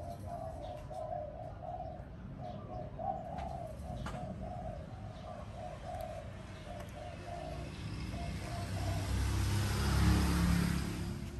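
A dove cooing in a long run of short, evenly repeated notes that stops about eight seconds in. A low rumble swells and fades around ten seconds in.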